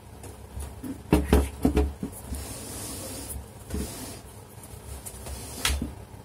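Handling sounds of a touch-screen point-of-sale computer being turned and shifted on a desk by hand. A quick run of knocks comes about a second in, then a short scraping rub, and a single sharper knock near the end.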